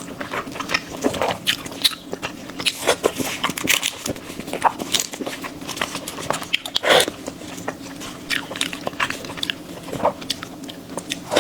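A person biting into and chewing food close to the microphone: many irregular short crunches and clicks, the loudest about seven seconds in.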